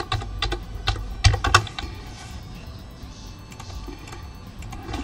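Typing on a computer keyboard: quick runs of key clicks in the first couple of seconds, then only a few scattered keystrokes.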